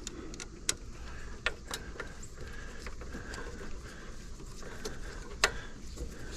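Scattered light clicks and taps of a hand tool on metal as a brake caliper mounting screw is worked in, with one sharper click about five and a half seconds in.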